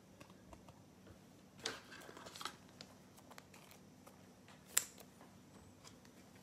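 Trading cards being handled and set down: a cluster of soft rustles and light taps about two seconds in, then one sharp click near five seconds, over a faint steady room hum.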